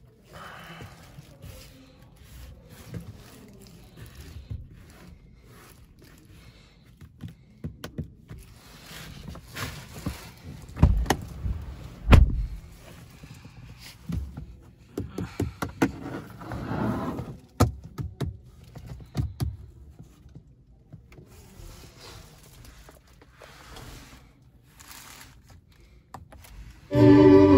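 A Ford Ranger pickup being worked by hand: scattered clicks and latch sounds, two heavy thunks close together about halfway through, and short whirring runs in between. Guitar music starts just before the end.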